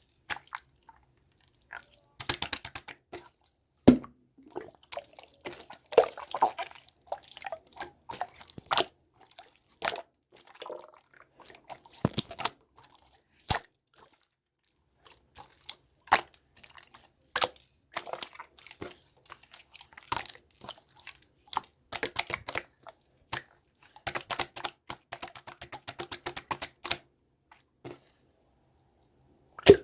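Green slime being squished and poked by hand, making irregular sharp clicks and pops as trapped air bursts. There is a quick run of rapid clicks late on.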